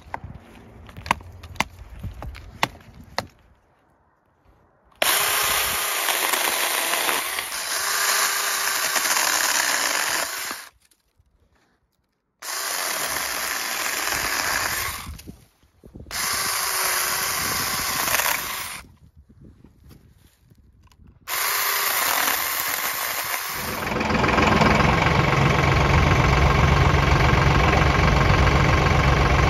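A few quick hatchet chops on a branch, then a Saker 20V battery mini chainsaw running in four bursts of a few seconds each as it cuts through tree branches. About 24 seconds in, a tractor engine takes over, running steadily at idle.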